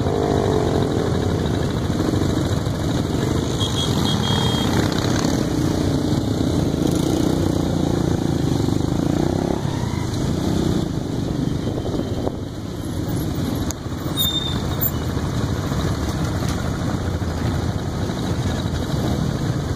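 Many motorcycle engines running together as a large pack of riders moves along a road, a steady mix of engine sound with some pitch glides from engines revving near the start.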